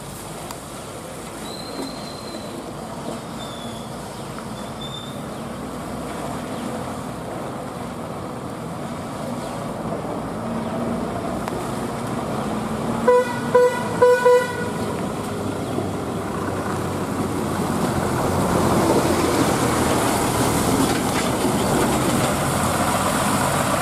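Heavy diesel trucks running on a wet, pitted road, with engine rumble and tyre noise that swell toward the end as a truck passes close. About halfway through, a truck horn gives four short toots in quick succession.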